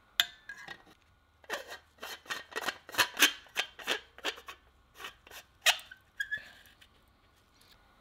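Gloved hands handling and twisting the metal housing of a Pyr-A-Larm industrial smoke detector: a run of irregular sharp clicks and taps through the middle, followed by a brief squeak.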